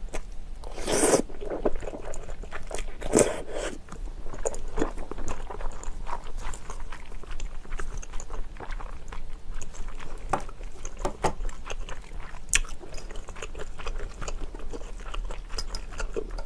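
Close-miked slurping of creamy pasta and glass noodles, twice in the first few seconds, followed by soft wet chewing with many small clicks of the mouth.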